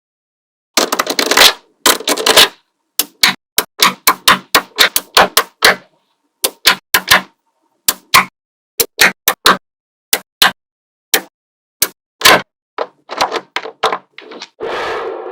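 Small magnetic balls snapping together with sharp clicks, irregular and a few a second, with short rattling clatters about a second in and near the end as several balls knock together at once.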